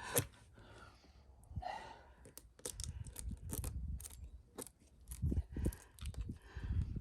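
Scattered knocks, clicks and scrapes as a tire plug insertion tool is forced into a nail puncture in a truck tire, with a couple of heavy breaths of effort; the plug will not go through the steel-belted tread.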